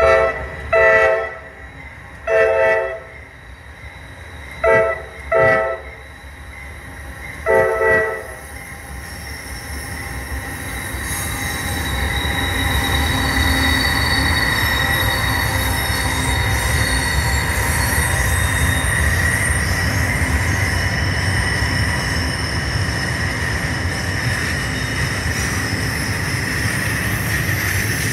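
A locomotive's multi-chime air horn sounds a series of long and short blasts. Then a train's rumble builds and runs on loudly, with a steady high squeal from the wheels.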